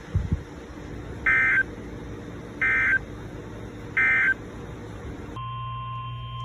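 Emergency Alert System (SAME) end-of-message code: three short, identical screeching data bursts about 1.3 seconds apart, marking the end of the alert. About five seconds in, a steady single high tone starts over a low hum.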